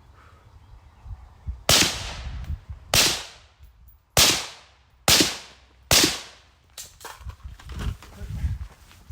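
A string of five gunshots, about a second apart and quickening slightly, each with a short echoing tail. Lighter knocks and low thuds follow near the end.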